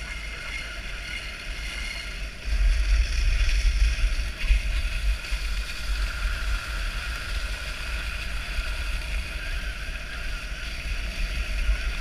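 Dogsled running behind a six-dog team on a snow trail: steady hiss of the sled gliding over the snow, with wind rumbling on the microphone that grows louder about two and a half seconds in.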